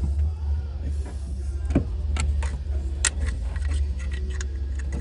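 Scattered light clicks and taps of hand work on an engine as a part is positioned for its bolts, a few sharper ones about two and three seconds in, over a steady low hum.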